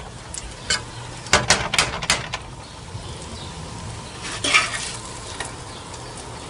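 Metal ladle clinking and scraping against a frying pan and an aluminium pot as pieces of butter-fried beef are moved onto cooked rice, with a faint sizzle underneath. A quick cluster of clinks comes about a second and a half in, and a longer scrape a little after four seconds.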